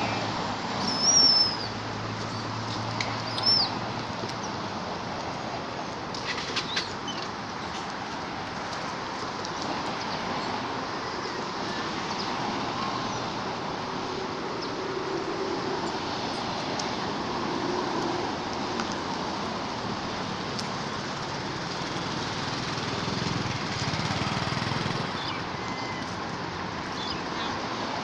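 Steady outdoor background noise, with two short, high-pitched chirps about a second and three and a half seconds in, and a few faint clicks a little later.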